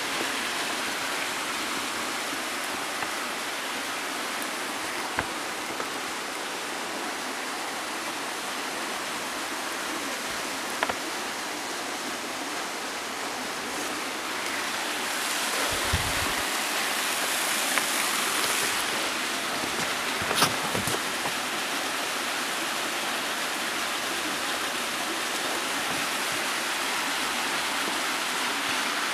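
Waterfall rushing steadily, growing louder and brighter about halfway through. A few short knocks and a low thump are heard over it.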